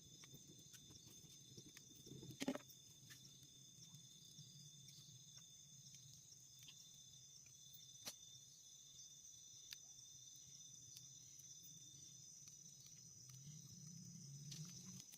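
Faint steady chirring of insects, several high tones held together, with a few sharp clicks: a loud one about two and a half seconds in and another about eight seconds in.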